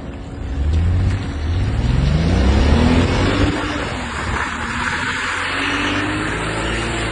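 A BMW's engine revs up, rising steadily in pitch over the first few seconds and then held at high revs. With it comes a loud hiss of tyres spinning and spraying on wet pavement as the car does donuts.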